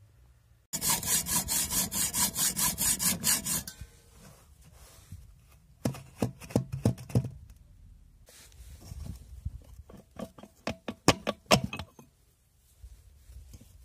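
Hand-sawing through the steel tube of a car shock absorber strut: a run of quick, even rasping strokes for about three seconds, then shorter, irregular bouts of strokes.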